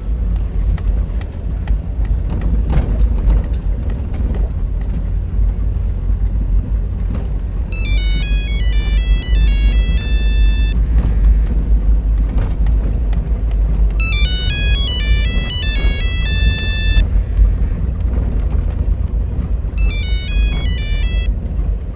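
Steady low rumble of a car's engine and tyres, heard from inside the cabin, with a mobile phone's electronic ringtone melody playing three times, starting about eight seconds in and repeating every five or six seconds.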